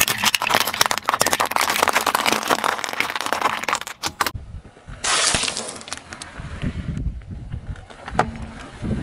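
Car tyre rolling over dry jumbo pasta shells, a dense run of sharp crackling and snapping as they shatter, lasting about four seconds. After a short break, a low rumble of the car rolling slowly on asphalt takes over in the second half.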